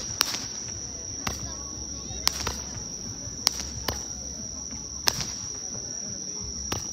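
Small toy fireworks going off with about six sharp pops at irregular intervals as sparking shots climb into the sky. Insects chirr steadily in a high tone throughout.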